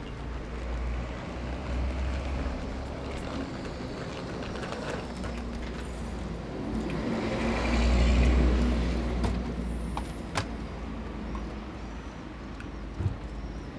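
Low rumble of motor-vehicle traffic, swelling to its loudest a little past halfway as a vehicle passes close by, with a few sharp clicks near the end.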